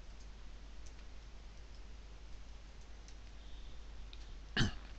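Faint computer keyboard typing: light, scattered key clicks over a low steady hum, with one short louder sound near the end.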